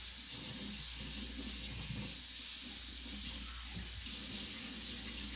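Kitchen faucet running steadily, its stream splashing into the sink.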